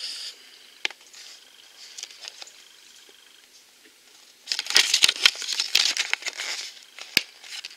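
A folded paper collector's leaflet rustling and crinkling as it is handled and turned over, with a few light clicks early on and a burst of loud crackling paper about halfway through, then a single sharp tap.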